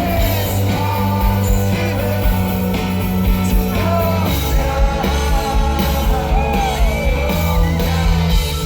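Live rock band performing: a lead singer's melody over electric guitar, bass and drums, through a concert sound system.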